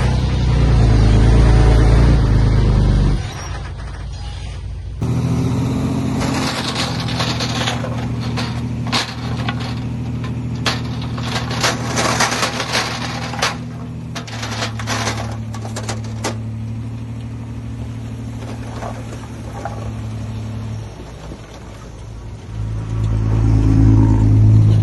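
Heavy diesel earthmoving machinery running, with a string of sharp clanks and knocks in the middle stretch. The engine note changes abruptly a few times, eases off briefly and builds up loud again near the end.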